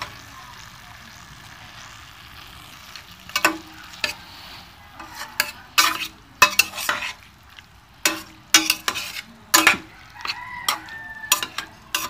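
Raw chicken pieces sizzling in hot oil and spice paste in a stainless steel pot, the start of frying (koshano) the meat. A few seconds in, a metal spatula starts stirring, scraping and clinking against the pot in irregular strokes.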